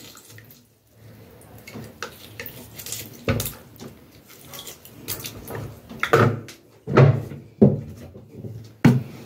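A few sharp knocks and clanks of a metal pan and bowl being handled in a stainless-steel kitchen sink, with quieter rustling between them.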